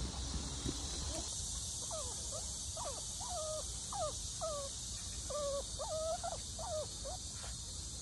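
Shih Tzu whining in a series of short, squeaky whines that bend up and down in pitch, excited at the sight of a deer.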